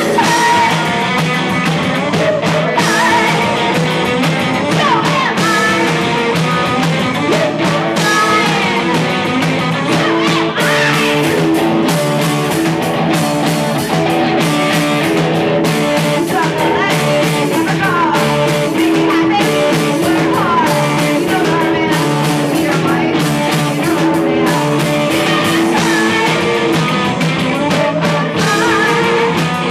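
Live rock band playing loudly: electric guitars and drums, with a singer.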